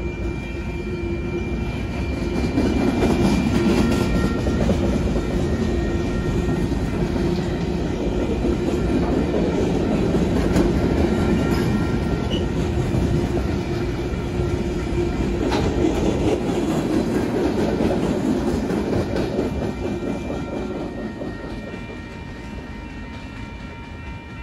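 Freight train cars rolling past, with the steady rumble and clatter of steel wheels on the rails. It gets louder about two seconds in and fades over the last few seconds as the end of the train moves away.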